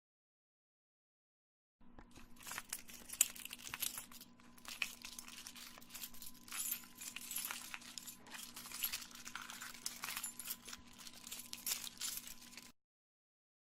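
A bunch of keys jangling and clinking: a long run of quick, irregular small metallic clicks, starting about two seconds in and cutting off near the end, over a faint steady hum.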